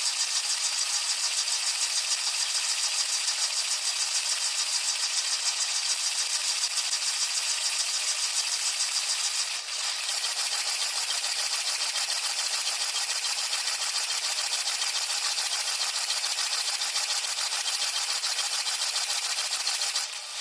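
Dishwasher wash cycle heard from inside the tub: a steady hiss of water spray with a fast, even rattle.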